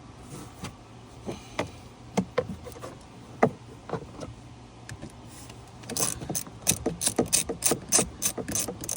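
Scattered clicks and knocks of hand tools and small parts while screws go back in, then, about two-thirds of the way through, a quick run of sharp clicks, about four or five a second.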